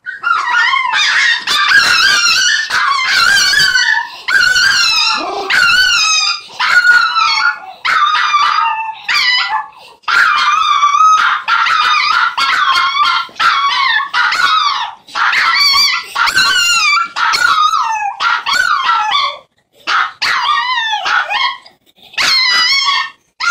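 Two long-haired chihuahuas howling together: high, wavering, quavering howls that overlap in long runs broken by brief pauses.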